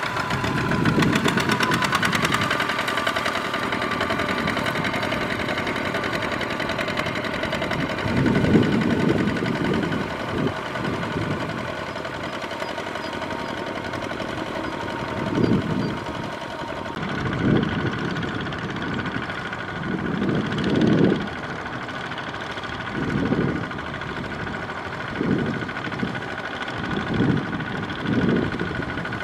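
Diesel engine of a two-wheel walking tractor running steadily as its cage wheels churn through a flooded rice paddy. Its low note swells in short surges every second or two, more often in the later part.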